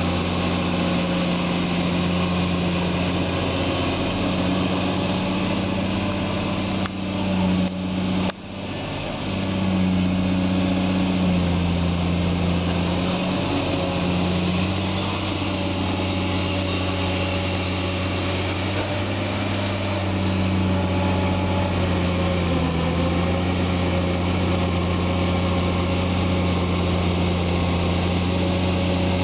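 CAT 345 long reach excavator's diesel engine running steadily while it digs, its pitch shifting slightly with the working load. A few brief knocks about seven to eight seconds in.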